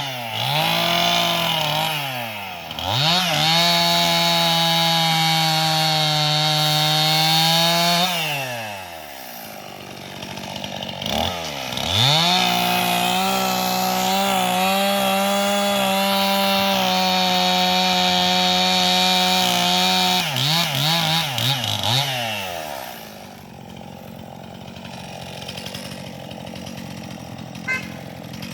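Gas chainsaw cutting tree limbs into chunks: the engine revs up and holds full throttle through two long cuts, dropping back to idle between and after them, with a few quick throttle blips after the second cut.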